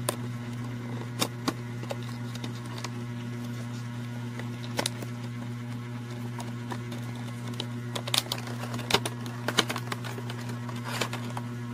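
Scattered sharp clicks and taps of a cardboard box and plastic tray being handled, bunched together in the last few seconds, over a steady low hum.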